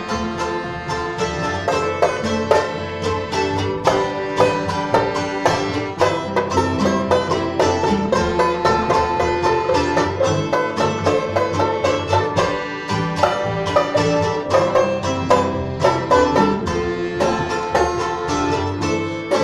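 Acoustic string band playing live, an instrumental stretch with quick plucked banjo notes over accordion, acoustic guitar and mandolin.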